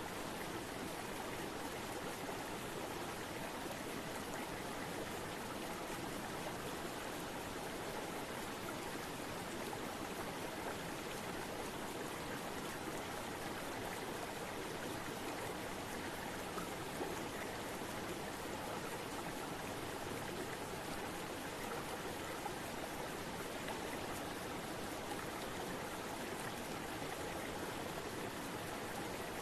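River water flowing steadily, an even wash of noise without breaks.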